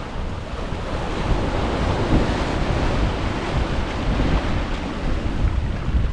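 Ocean surf breaking and washing up a beach, swelling through the middle and easing off, with wind buffeting the microphone in a steady low rumble.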